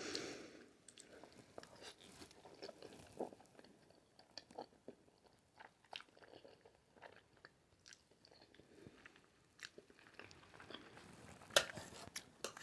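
Faint close-miked chewing of spaghetti Alfredo: scattered soft, wet mouth clicks, growing a little louder and busier near the end.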